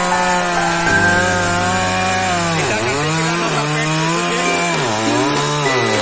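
Chainsaw cutting into a dead tree trunk, its pitch dipping and recovering about four times as the chain bogs down in the wood under load.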